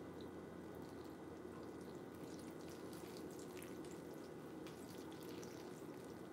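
Red wine poured from a bottle into a glass bowl of cereal: a faint trickle with small scattered ticks over a steady low hum.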